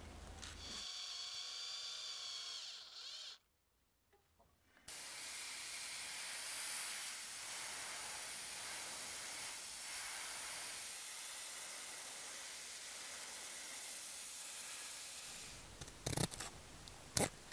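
Airbrush spraying paint: a steady, even hiss lasting about ten seconds, preceded by a shorter hiss with a whistling tone and a moment of silence. Near the end come two sharp snips of scissors cutting.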